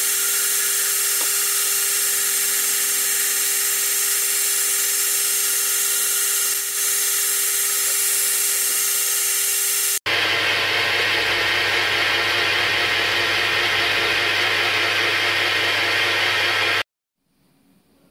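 Milling machine running as an end mill cuts a key slot in a steel arbor: a steady whine with a few held tones over the hiss of cutting. About ten seconds in the sound changes abruptly to a lower hum with rougher cutting noise, and it cuts off shortly before the end.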